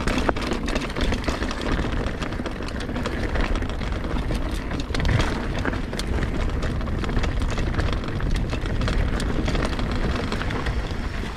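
Mountain bike riding down a dirt singletrack trail: a steady low rumble with frequent short clicks and rattles as the bike rolls over roots and rocks.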